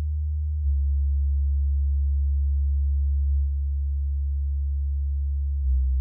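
A steady low sine-wave bass test tone at 75 Hz, played through a pair of bookshelf speakers (Microlab Solo 6C, then Edifier R1280DB), with faint overtones above it. The tone steps in loudness about half a second in and again about three seconds in as the test switches speakers, and near the end it shifts to a 65 Hz tone.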